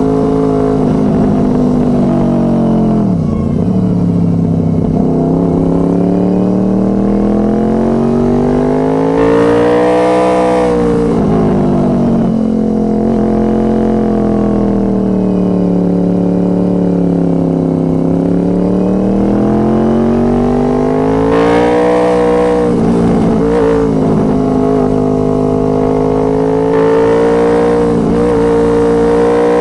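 Honda VFR800 Interceptor's V4 engine running through a Two Brothers Racing aftermarket exhaust, rising and falling in pitch as the bike accelerates and slows. The note dips sharply about three seconds in, climbs to a peak around ten seconds, sinks slowly to a low near eighteen seconds, then climbs again and holds fairly steady with brief breaks.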